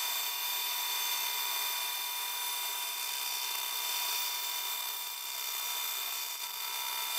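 Band saw with a half-inch, 8-teeth-per-inch blade ripping a 2-inch-thick board lengthwise, the footage sped up tenfold. A steady, unbroken whir of the motor and blade cutting wood, with several fixed high-pitched tones over a hiss.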